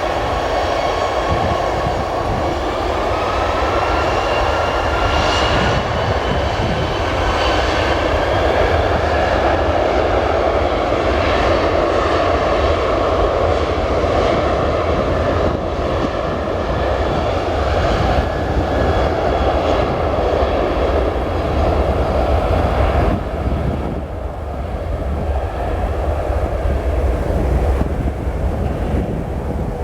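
Jet airliner engines running loud, with a whine that rises slightly in pitch over the first few seconds over a deep rumble. The higher part of the sound drops off abruptly about twenty-three seconds in.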